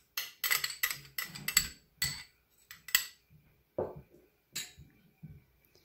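A metal spoon clinking and scraping against a small glass dish while scraping out thick oyster sauce. The clinks come quickly for about two seconds, then a few single taps about a second apart.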